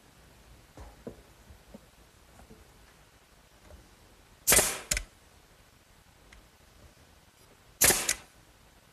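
Pneumatic nail gun driving nails into a wooden board: two sharp shots about three seconds apart, each followed by a short hiss. A few faint taps come before them as the boards are set in place.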